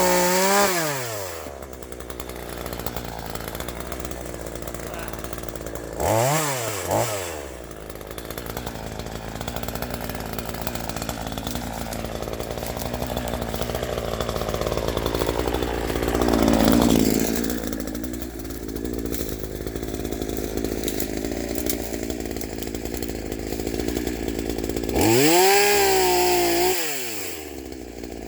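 Chainsaw running hard: it drops from full throttle at the start, revs briefly about six seconds in, runs for a long stretch under load while cutting, and revs up and back down again near the end.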